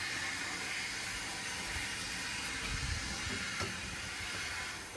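A steady hiss, which drops away sharply near the end.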